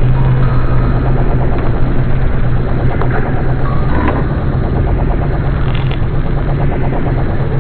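A motor or engine running steadily: a loud, even low hum with a fast regular rattle over it.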